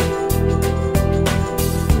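Background music: instrumental chords held over a steady beat.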